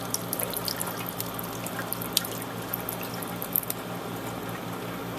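Water pouring out of a mini dehumidifier's reservoir into a sink: a steady trickle with many small drips and splashes.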